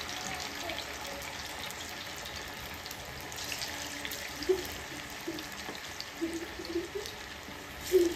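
Chicken kebab pieces deep-frying in hot oil in a kadai, a steady sizzle with the oil bubbling hard. It briefly gets louder about halfway through and again near the end as more pieces are dropped in.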